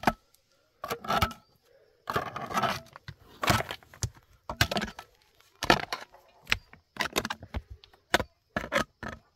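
Metal tools striking rock in a string of sharp, irregular blows, about one a second, with a short stretch of scraping among them: stone being broken up by hand.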